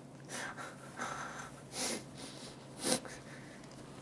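About four short breaths and sniffs close to the microphone, the loudest about three seconds in, over a faint steady hum.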